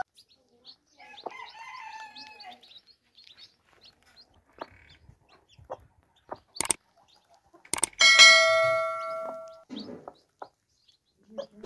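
A hen clucking and chicks peeping while they peck at grain, with small ticks of beaks on the floor. About seven seconds in come a couple of sharp clicks, then a loud ringing bell chime that fades over a second and a half, from a subscribe-button animation.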